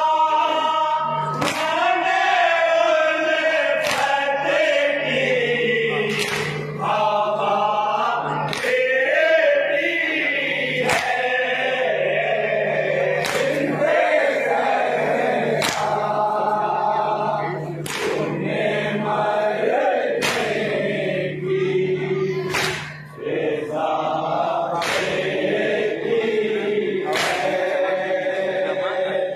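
A group of men chanting a nauha, a Shia mourning lament, in unison. A sharp collective chest-beat (matam) lands about every two seconds in time with the chant.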